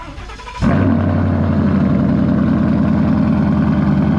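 Cold start of a Ford Mustang GT's 5.0 V8: brief starter cranking, then the engine fires about half a second in and settles into a loud, steady idle.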